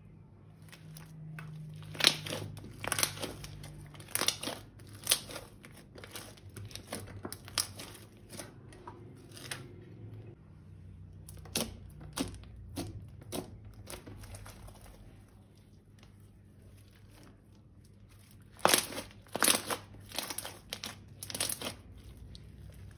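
Crinkling and crackling of handled material in three clusters of sharp crackles: from about two seconds in, again around twelve seconds in, and loudest near the end. A faint low hum runs underneath.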